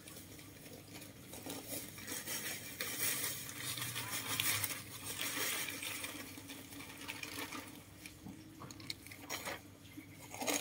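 Rustling and scraping of plastic bags of potting soil and loose soil being handled, with a few short clicks.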